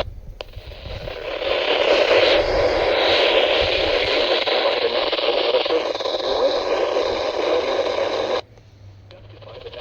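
Static hiss from a NOAA weather radio receiver, with no clear voice coming through, cutting off suddenly about eight seconds in and leaving a faint background.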